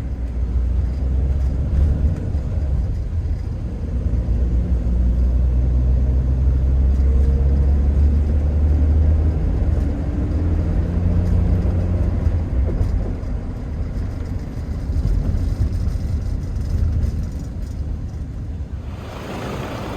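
Steady low rumble of a road vehicle driving, engine and road noise with faint tones that shift slowly in pitch.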